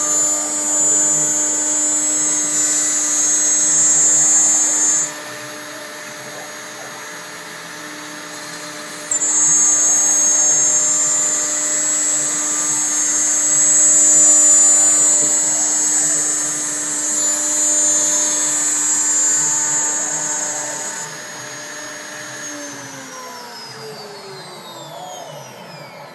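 CNC router spindle cutting plywood, a loud high-pitched hiss over a steady whine. The cutting noise drops away about five seconds in and comes back about four seconds later. Near the end the cutting stops and the spindle winds down, its whine falling in pitch.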